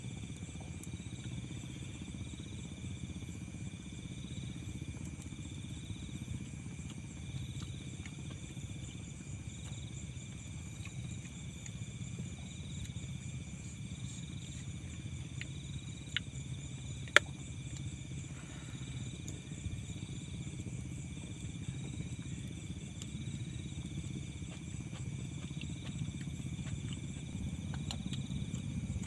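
Crickets and other insects chirping steadily, one of them in slow regular pulses, over a low steady hum. There is a single sharp click about 17 seconds in.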